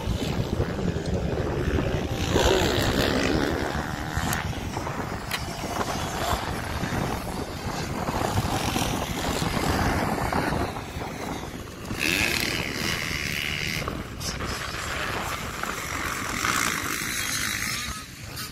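Dirt bike engines revving as motocross bikes ride around a dirt track, the pitch climbing and dropping off several times.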